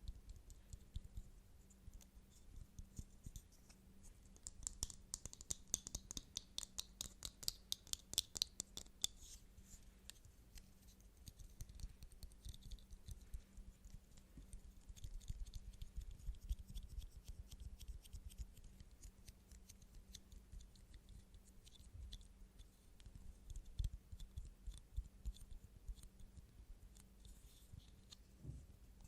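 Quiet ASMR tapping and scratching on small objects: many short, crisp taps, with a fast, dense run of them about five to nine seconds in, then sparser taps with a few louder ones later.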